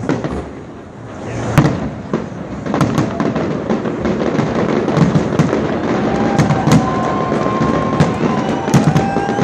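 Fireworks display: booms and sharp crackling bangs, sparse at first and coming thick and fast from about three seconds in.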